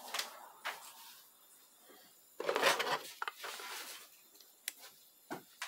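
Handling sounds of a transmission solenoid being pushed into its plastic solenoid body: a rubbing scrape about two and a half seconds in and a few light clicks near the end.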